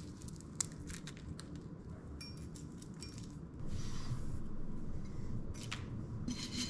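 Dehydrated hot pepper strips being torn and crumbled by hand over a glass measuring cup: many small dry crackles and snaps, with a brief rustle about four seconds in.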